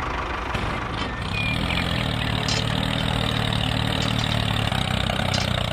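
Diesel tractor engine running steadily at low revs, settling into an even, low throb about a second in.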